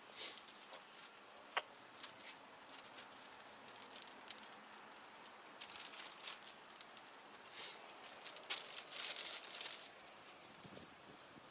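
Faint rustling and crinkling of material handled close to a body-worn camera's microphone, with scattered sharp clicks and two longer bursts of rustling in the second half.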